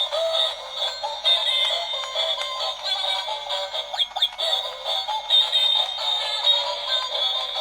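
Tinny electronic music with a melody and no bass.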